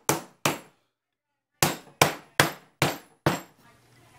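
Soft-faced mallet, white face on a metal head, knocking on the dovetailed end of a wooden board. There are two sharp knocks, a short silent break, then five more evenly spaced at about two and a half a second.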